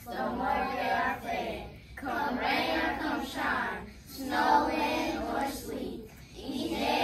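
A class of elementary-school children reciting a literacy pledge together in unison, line by line in phrases about two seconds long with brief pauses between them.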